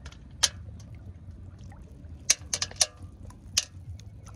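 Shallow field water sloshing and splashing as someone wades and gropes for snails by hand, with a few sharp splashes and clicks about half a second in, around two and a half seconds and near three and a half seconds, over a low steady rumble.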